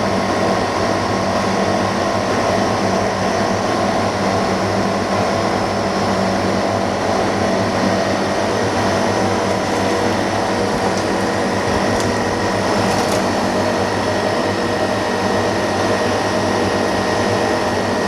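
Steady electric machine hum from the fans and pump running in a dust-free workroom that houses an OCA film laminating machine, with several fixed tones. A couple of faint clicks come about two-thirds of the way through.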